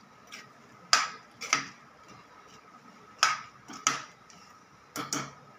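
Metal ladle clinking against the side of an aluminium pot while stirring a thick cooking mango-and-jaggery mixture: sharp knocks, mostly in pairs, every second or two, with quiet between.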